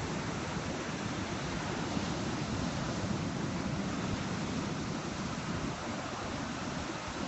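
Steady rush of sea surf mixed with wind buffeting the microphone, with no separate events standing out.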